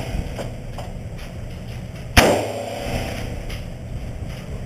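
A single rifle shot from an M1 Garand in .30-06 about two seconds in, sharp, with a short ringing tail.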